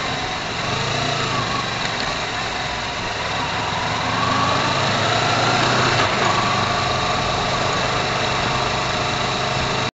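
Small scooter engine running under way, with road and wind noise; its pitch rises about four seconds in as it accelerates. The sound cuts off suddenly just before the end.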